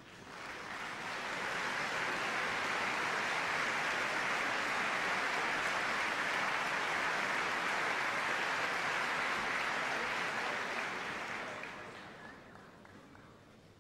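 Audience applauding: the clapping swells over the first second or two, holds steady, then dies away over about two seconds near the end.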